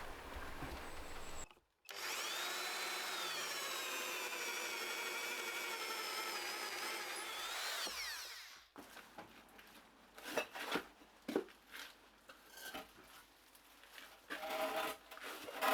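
Electric drill boring into oak, the motor's whine running steadily for about six seconds with its pitch rising and dipping under load. It stops suddenly and is followed by a series of short, sharp knocks and taps on wood.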